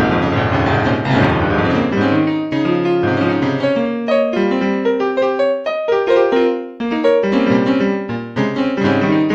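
Piano music: melody notes over chords, with a brief dip in loudness about two-thirds of the way through.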